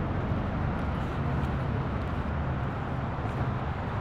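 Steady outdoor ambience of a parking lot: an even low rumble with a hiss above it, without distinct events.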